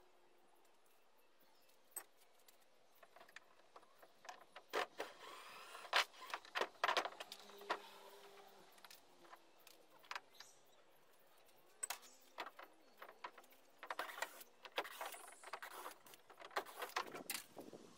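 Scattered, irregular clicks, taps and knocks as wooden canoe gunwale strips and hand tools are handled against the canoe's side.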